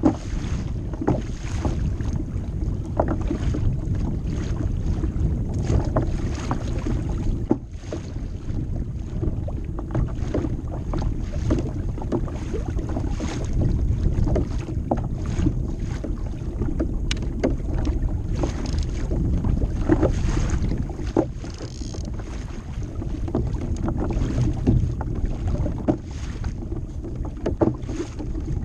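Wind buffeting the microphone with a steady low rumble, over water slapping and splashing irregularly against the hull of a kayak moving through choppy lake water.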